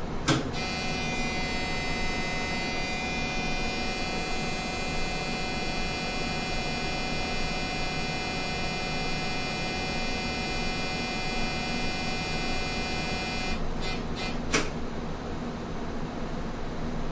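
Varian Clinac 6EX medical linear accelerator with its treatment beam on: a steady high-pitched electronic whine of many tones over a lower hum. It switches on with a click just after the start and cuts off with a few clicks about 14 seconds in.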